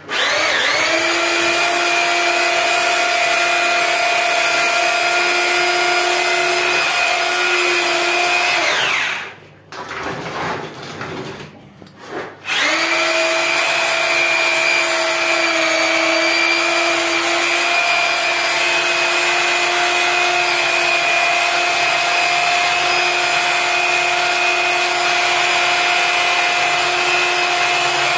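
Handheld electric paddle mixer stirring plaster mortar in a bucket: a steady motor whine that winds down about nine seconds in. After a short pause it starts up again and runs steadily.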